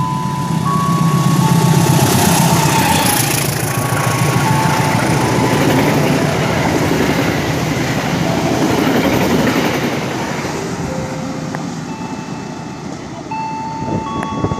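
Sawunggalih long-distance passenger train passing through the station, its wheels and carriages rumbling and clattering over the track. The noise builds over the first two seconds, stays loud for several seconds, then fades away.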